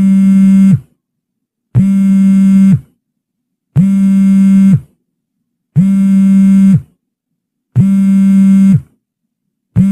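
Smartphone vibrating for an incoming call: a buzz about a second long repeating every two seconds, with a slight drop in pitch as each buzz stops.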